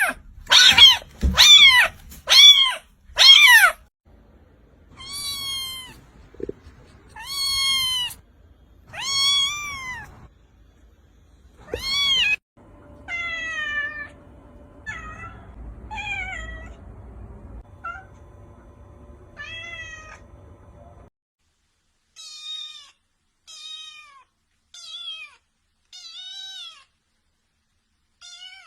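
Kittens meowing, a string of short clips of different kittens: a quick run of loud, high meows at the start, then slower, drawn-out meows, and fainter meows near the end. A steady hum sits behind the meows in the middle stretch.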